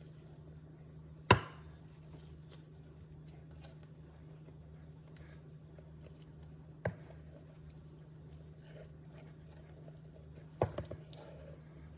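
Three sharp knocks of kitchen utensils: a loud one about a second in, a softer one near the middle and a short cluster near the end, each ringing out briefly, over a steady low hum.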